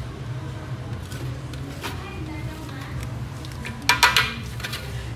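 Hand-mixing thick cake batter in a large metal pot, with faint scrapes and a quick cluster of sharp metallic clinks against the pot about four seconds in, over a steady low hum.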